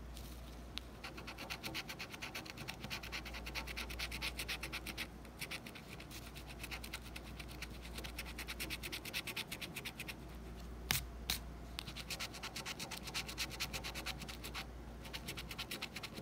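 Coin scraping the coating off a paper lottery scratch-off ticket in rapid back-and-forth strokes, with a few short pauses. Two sharp clicks sound about eleven seconds in.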